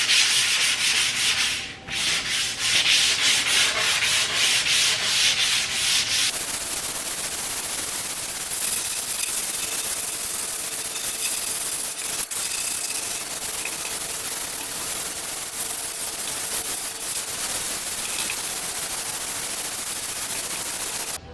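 Sandpaper rubbing over the old coffee table's scratched top to smooth it: quick back-and-forth strokes for the first six seconds with a short pause near two seconds, then a steadier, duller scraping.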